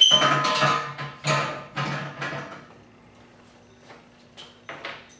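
Steel parts of a Pittsburgh motorcycle wheel stand clanking and scraping with a metallic ring in three loud bursts over the first two and a half seconds, as the black wheel-chock plate is worked into place on the frame. A few faint clicks of small hardware follow near the end.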